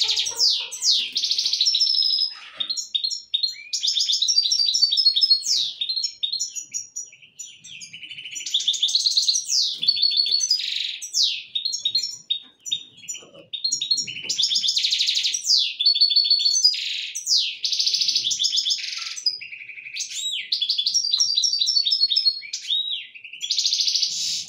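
Caged finch singing: fast, high-pitched twittering phrases of trills and quick rising and falling notes, each a few seconds long with short breaks between them.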